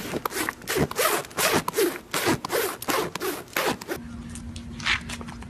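A horse's muzzle nibbling and rubbing against a person's arm and clothing close to the microphone: a rhythmic rasping, about two to three strokes a second. It cuts off suddenly about four seconds in, leaving a low steady hum.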